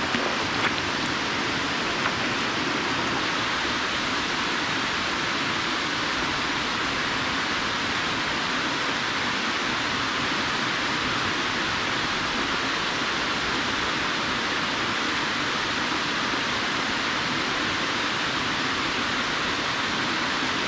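Water spilling down the face of a concrete dam spillway into the pool below: a steady, even rush of falling water.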